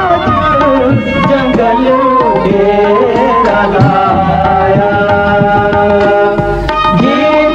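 Himachali folk devotional song (bhajan) from an old recording: a hand drum keeps the rhythm under a sustained melody.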